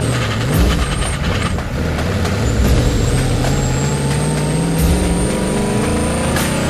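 Twin-turbo Nissan VK56 5.6-litre V8 in a Z31 300ZX pulling hard under acceleration. Its engine note rises steadily in pitch for about five seconds as the revs climb through a gear.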